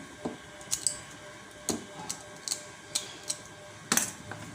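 Irregular light clicks and taps from handling the soldering iron as it is readied to be plugged in, with a sharper knock near the end.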